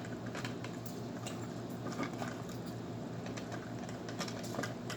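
Light, irregular clicks and rustles of small plastic toys and their packaging being handled.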